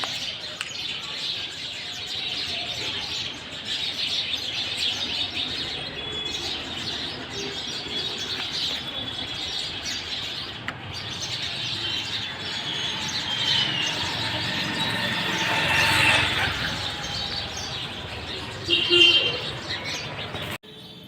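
A dense chorus of many small birds chirping and twittering at once, swelling about three-quarters of the way in, with one loud call near the end before the sound drops away abruptly.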